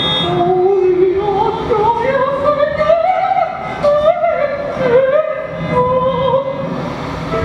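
Wordless female voice sung into a microphone: a wavering melodic line that climbs in small steps over the first few seconds, then wavers and dips.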